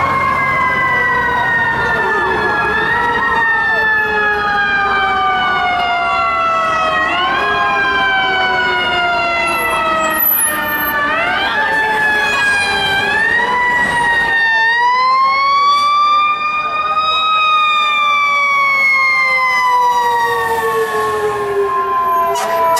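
FDNY fire apparatus sirens wailing: each one rises and then slowly falls in pitch over several seconds, again and again, with more than one siren overlapping.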